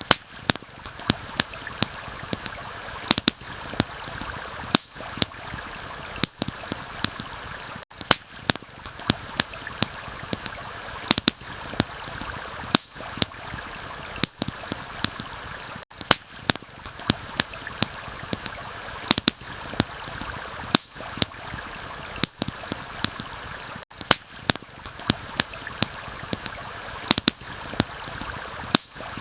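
Steady rush of a stream with a campfire crackling and popping over it, many sharp snaps a second.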